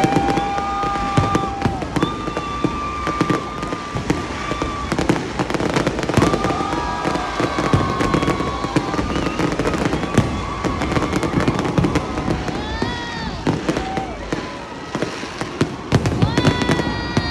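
Fireworks display going off: a steady run of bangs and crackling reports, mixed with high whistling tones that hold or arch in pitch.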